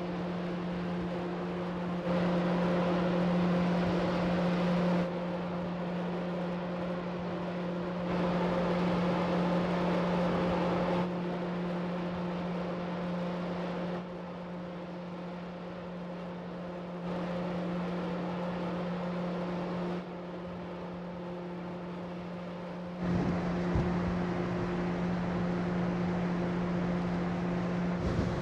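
Steady low drone of the ferry Sunflower Furano's machinery, heard on the open deck, under a rushing wind-and-sea noise that steps up and down in level every few seconds. A low rumble joins near the end.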